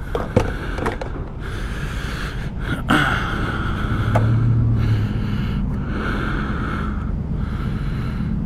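A person breathing heavily inside a full-face motorcycle helmet, a breath every second or so, loud and close to the helmet microphone, fogging the visor. A low steady rumble runs underneath, and a few sharp clicks come in the first three seconds.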